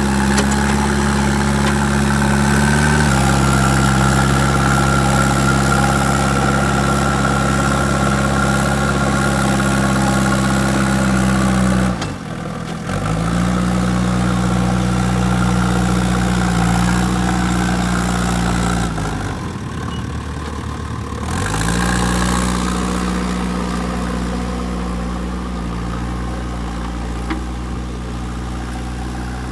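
Diesel engine of a JCB 3DX backhoe loader running steadily at a fairly high speed. Its pitch dips and recovers twice, briefly about twelve seconds in and for about two seconds around twenty seconds in, as if the engine is pulled down under load.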